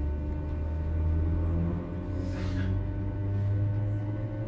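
Interior of a British Rail Class 319 electric multiple unit under way: the steady electrical hum of its traction equipment and DC traction motors, with a low tone that rises in pitch about two seconds in. A brief hiss comes midway.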